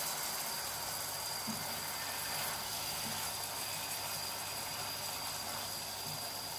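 Tofu and vegetables simmering in sauce in a frying pan on an induction hob, a steady hiss.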